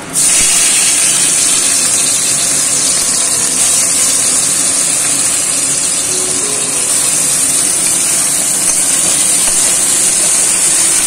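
Chopped tomatoes sizzling in hot oil in a wok: a loud, steady frying hiss that starts suddenly as they go into the pan.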